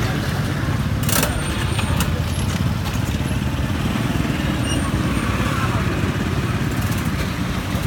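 Steady low rumble of street traffic, with motorbike engines running, and a single sharp click about a second in.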